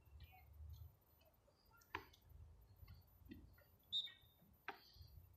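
Near-quiet outdoor scene: a low rumble with a few faint sharp knocks and clicks, the loudest about four seconds in.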